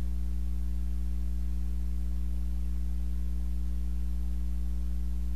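Steady low electrical hum, a constant mains-type buzz with a few fainter overtones above it, unchanging throughout.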